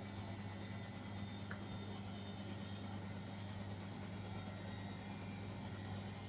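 Beko washing machine running on its spin-and-drain programme: a steady hum over an even whirring noise, with no change in pitch or rhythm.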